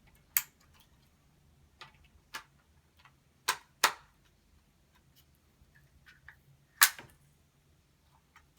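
Sharp plastic clicks and knocks from a power strip and its plug adapter being handled, about six separate clicks, with a close pair a little past the middle and the loudest one near the end.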